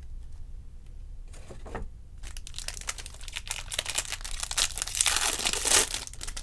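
Foil trading-card pack wrapper crinkling as it is torn open by hand. The crackling starts about two seconds in and grows louder toward the end.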